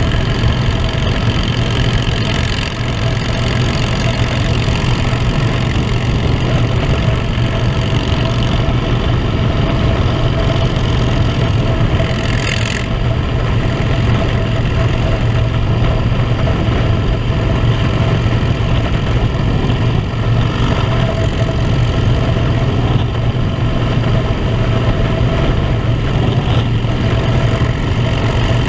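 Harley-Davidson motorcycle engine running steadily at cruising speed, with wind noise over the microphone.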